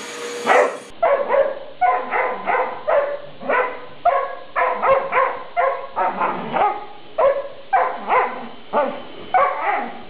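A dog barking over and over at a vacuum cleaner's power head, short sharp barks about two a second without a break.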